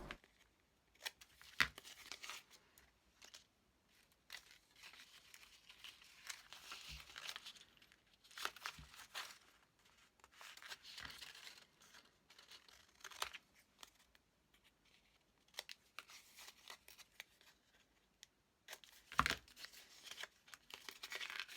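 Scissors cutting through stiff, gesso-painted adding machine paper, with faint intermittent snips and paper rustling, and a sharper click near the end.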